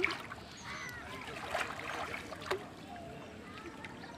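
Pond water splashing and sloshing, with a sharper splash about two and a half seconds in, under faint distant voices.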